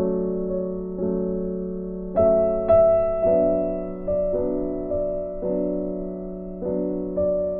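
Background music played on a keyboard: a slow, gentle tune of chords struck about once a second, each left to fade.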